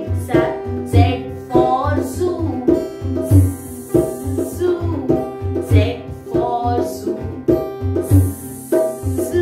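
Upbeat children's backing music with plucked strings over a steady beat.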